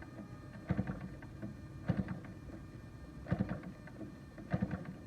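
DLE 35 RE single-cylinder two-stroke gasoline model-aircraft engine being flipped over by hand at the propeller with the choke on, four times about a second apart, without firing. The choked flips draw fuel up to the carburettor of a cold engine that is hard to start.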